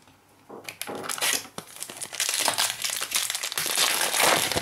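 Foil wrapper of a 2017-18 Prizm basketball card pack crinkling and tearing as it is handled and ripped open, a dense crackle that builds in the second half.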